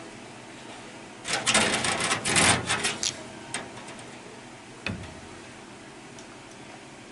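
A burst of rapid clattering rattles lasting about two seconds, followed by two single knocks.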